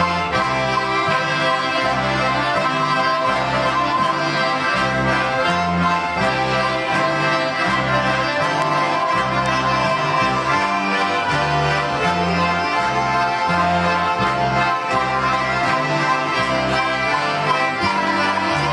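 An ensemble of Estonian diatonic button accordions (lõõtspill) playing a folk dance tune together over a steady, even bass beat.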